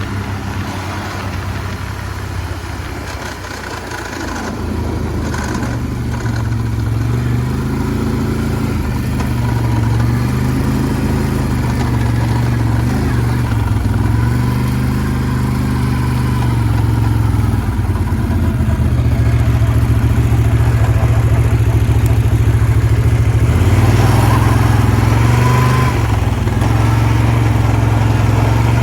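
Freshly rebuilt Rotax 800 V-twin engine of a 2009 Can-Am Outlander 800 ATV running under throttle. Its pitch rises and falls several times, and it gets louder after about four seconds.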